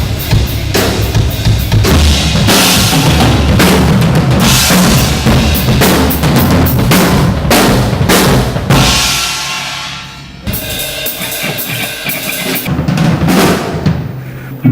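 Drum kit played hard, with bass drum, snare and cymbal wash. About nine seconds in the playing fades away, then resumes more quietly with sparser hits.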